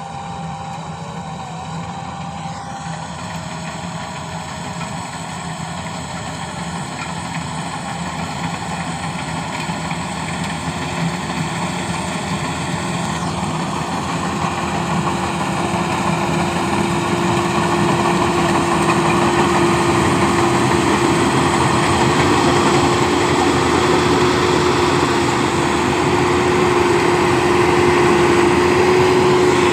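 Rice combine harvester running, its engine and machinery growing steadily louder, with a steady whine joining about a third of the way in.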